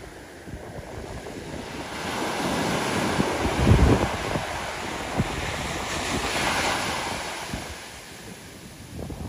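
Small ocean waves breaking on a sandy beach. One wave swells and breaks about three and a half seconds in, then washes up the sand with a long hiss that fades near the end.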